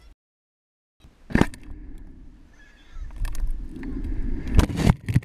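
Wind rushing and buffeting over the microphone of a camera riding a water bottle rocket in flight, with a sharp knock about a second and a half in and two more close together near the end. The sound drops out briefly at the start.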